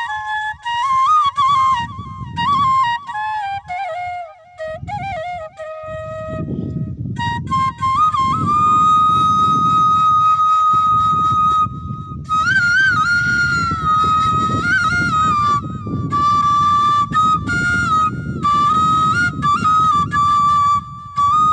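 A bansi, the Bengali bamboo flute, plays a folk-song melody. An ornamented phrase steps downward, then about six seconds in there is a short break. After it comes a long held high note and more ornamented turns, with a low rumble underneath.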